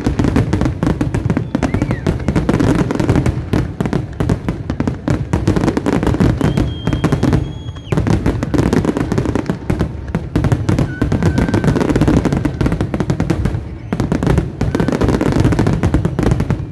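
A dense fireworks barrage: a continuous rapid volley of bangs and crackling from many shells bursting at once, dipping briefly just before eight seconds in.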